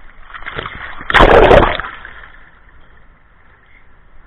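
Water splashing right against the microphone at the waterline. One loud splash comes a little over a second in and lasts about half a second, with a smaller one just before it. Low sloshing of shallow water follows.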